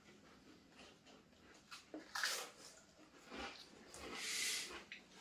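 Quiet eating noises from people chewing Pringles crisps, with a few short breathy puffs of breath, the longest near the end.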